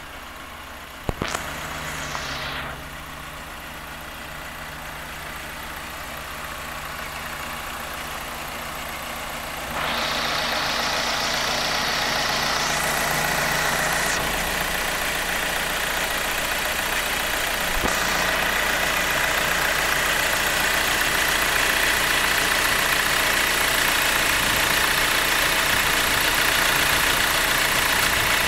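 Ford Transit minibus diesel engine idling steadily with the bonnet open. It grows louder and fuller at about ten seconds in, with a thin steady whine above the engine note. There is a sharp click about a second in.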